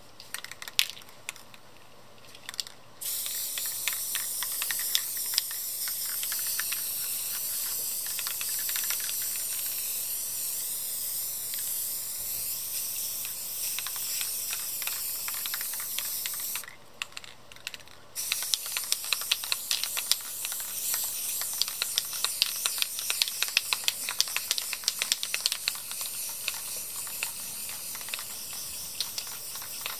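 Aerosol spray paint can (Rust-Oleum American Accents, blue) hissing as paint is sprayed onto canvas: a few seconds of clicking, probably the can's mixing ball rattling as it is shaken, then a steady hiss for about thirteen seconds. After a brief stop the hiss starts again, now with many sharp ticks over it.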